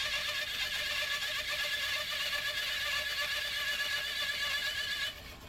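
Homemade metal-cutting bandsaw blade cutting through steel stock: a steady, high-pitched, slightly warbling ringing screech that stops abruptly about five seconds in.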